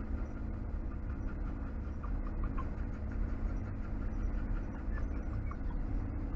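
Motorhome engine running as it drives slowly, a steady low rumble with a faint even hum.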